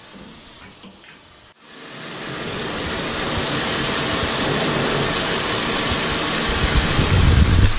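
Hose spraying near-boiling hot water onto a trailer's cold aluminum walls: a steady hiss that starts suddenly about a second and a half in, swells, and holds, with a low rumble building near the end.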